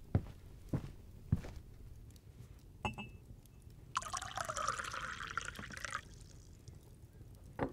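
A few soft footsteps, a light clink about three seconds in, then liquid poured into a cup for about two seconds: a herbal infusion of willow bark and chamomile being served.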